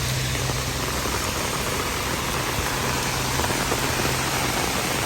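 Heavy rain falling, a steady hiss, over a low steady hum.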